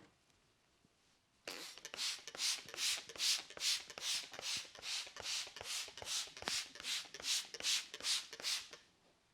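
Barber's hands rubbing briskly through hair and over the scalp in a steady rhythm, about two and a half swishing, crackly strokes a second. They start about a second and a half in and stop shortly before the end.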